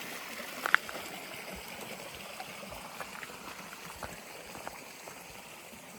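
A stream running, its steady rush slowly fading. There is a sharp click just under a second in, and a few faint knocks.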